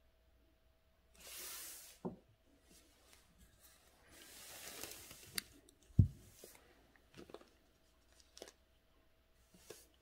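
Sheet of calligraphy paper rustling and sliding over a tabletop in two short stretches, with a dull thump about six seconds in and a few light taps after it.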